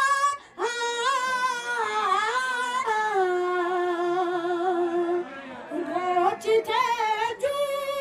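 A boy singing unaccompanied into a microphone in a high voice, holding long, wavering notes, with a brief break about half a second in and another about five seconds in.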